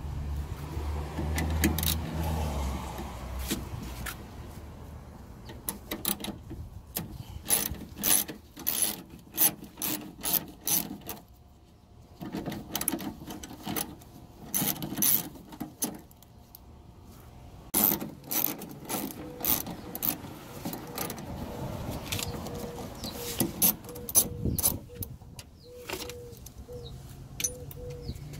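Ratchet wrench with a 10 mm socket on an extension clicking in quick runs as it backs out the bolts that hold the car door's rear window guide. A low rumble comes in the first few seconds.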